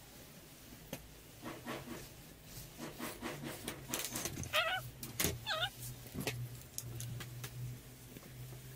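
Clicks and scratches of hand tools being handled on a work table: a plastic set square, a pen and a craft knife moved about on balsa sheet. A cat meows twice in the background about halfway through.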